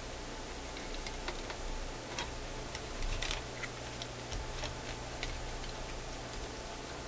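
Scattered, irregular small clicks and taps from hands handling a vintage tube radio chassis and its capacitor wire leads, over a steady hiss and a faint low hum.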